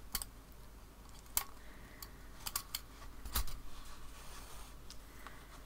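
Small sharp clicks and light metallic taps from handling a mending loom and darning needle while stitching: a handful scattered through, with a quick cluster about two and a half seconds in and the loudest tap just after.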